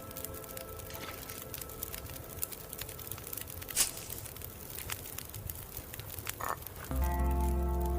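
Tea being sipped: soft scattered clicks and crackles, with a sharper click about four seconds in and a short gulp-like sound shortly before background music starts near the end.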